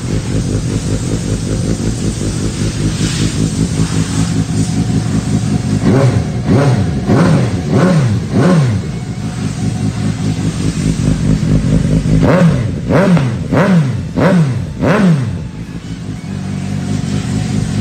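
Suzuki GSX-S750's inline-four engine with an aftermarket Yoshimura muffler, idling in neutral and given two runs of about five quick throttle blips, each revving up and dropping straight back to idle.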